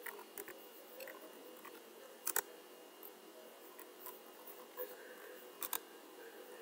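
Computer keyboard typing: sparse, irregular key clicks, with a louder double click a little over two seconds in and another pair near the end, over a faint steady hum.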